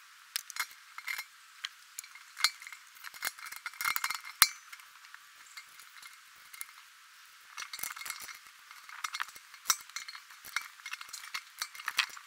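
Hands fitting the plastic LNB housing back onto an RV satellite dish's feed arm: irregular light clicks, clinks and rattles of plastic parts and cable, with a sharper click about four and a half seconds in.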